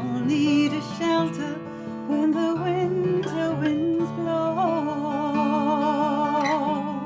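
Folk song: a voice singing over strummed acoustic guitar, ending on a long held note with vibrato.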